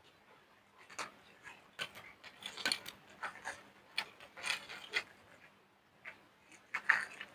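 Crushing soap with foam: irregular crunchy crackles and clicks, coming in clusters with short quieter gaps between.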